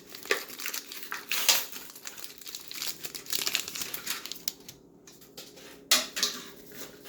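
Foil booster pack wrapper crinkling as it is handled and torn open, with louder sharp crackles about a second and a half in and again near six seconds.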